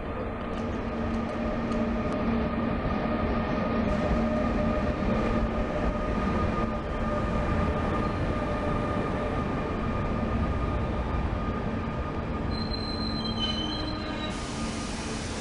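InterCity train of ÖBB passenger coaches, hauled by a Taurus electric locomotive, rolling along the platform. Its wheels and running gear give a steady rumble with several steady squealing tones over it, and a few higher tones come in near the end.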